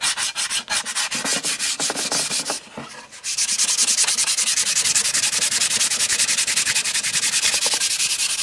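Sandpaper held flat under the hand, sanding a plywood board in quick, even back-and-forth strokes, several a second. There is a short break about two and a half seconds in, then the strokes resume more steadily and louder.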